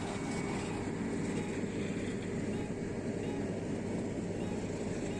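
A steady, even engine hum with no distinct knocks or changes.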